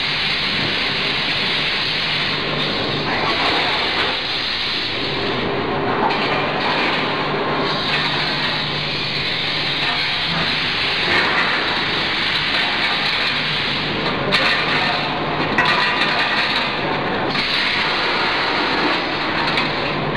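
Multihead weigher packing line running: a constant low hum under a dense, even mechanical noise.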